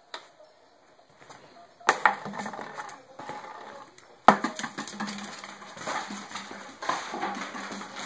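Two sharp knocks, about two seconds apart, each followed by irregular scuffling and clattering.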